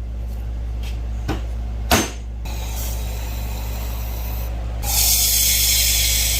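Over a steady low hum, a single short knock about 2 s in, then a loud spraying hiss that starts near the end and keeps going.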